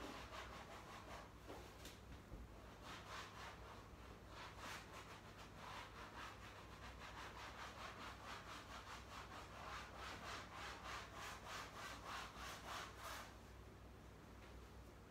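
Faint, quick, even rubbing strokes, about two to three a second, like something being scrubbed by hand. They stop a couple of seconds before the end. A low steady hum runs underneath.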